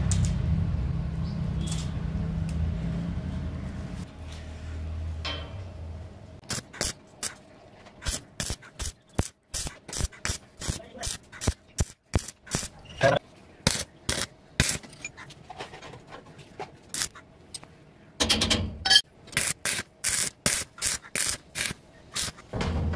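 Stick (arc) welding on a steel square-tube frame: the arc crackles and sizzles in many short bursts from about six seconds in, thickest near the end. A low steady hum runs through the first few seconds.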